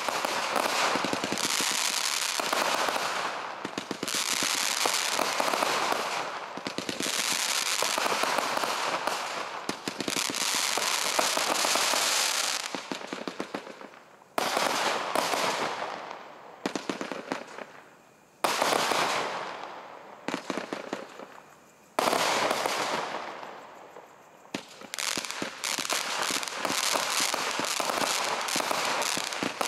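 Brothers Pyrotechnics 'Shazam' firework firing aerial shots that burst into crackling stars, a dense crackle of countless small pops with short pauses. Past the middle it slows to three separate bursts, each crackle fading over a few seconds. Near the end the shots come thick and fast again.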